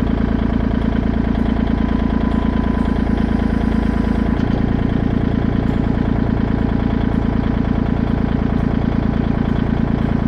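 Kubota tractor's diesel engine running steadily while working. Its note shifts about four and a half seconds in.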